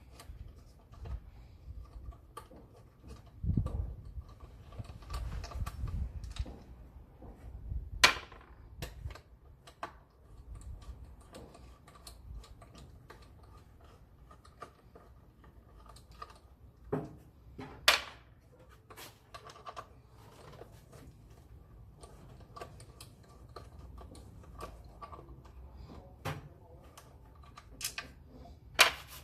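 Irregular clicks, clinks and knocks of hand tools and metal parts being handled, with a few sharper knocks and some dull thuds, during disassembly work on a car engine.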